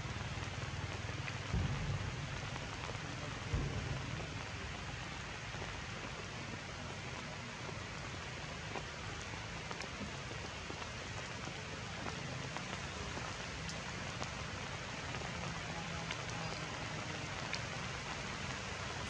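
Steady rain falling on forest foliage, an even hiss throughout, with two low thumps about one and a half and three and a half seconds in.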